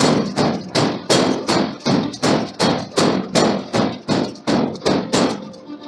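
Steady, rhythmic hammer blows forging a steel billet, about two and a half strikes a second, that stop near the end.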